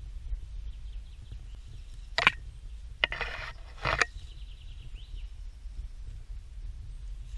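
Footsteps crunching on dry leaf litter, with three sharper crunches about two, three and four seconds in, over a low rumble of wind on the microphone.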